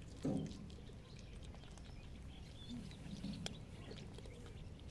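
Cats crunching dry kibble, a patter of small clicks, with a short low sound about a third of a second in as the loudest event. Faint bird chirps sound in the background.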